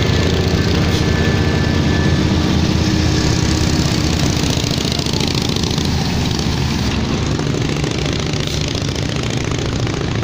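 Engine of a WWII-era US Army tractor truck running at low speed as it drives past pulling a semitrailer, slowly fading, with the engines of other old military vehicles behind it.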